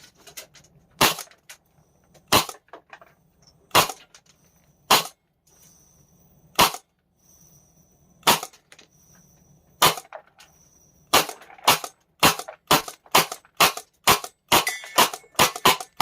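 Airsoft Innovations FLAK 10 gas airsoft gun firing a string of sharp shots. About seven come a second and a half or so apart, then about eleven faster shots, roughly two a second, run to the end.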